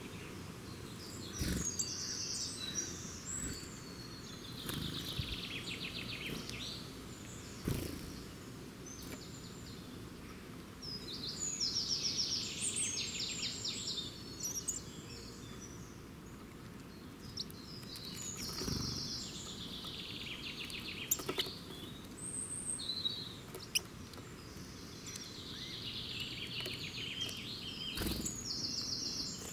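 A songbird repeats the same short song five times, each one a high rapid trill that drops in pitch, with a few other bird chirps between. A steady low background rumble runs underneath, with a few brief soft thumps.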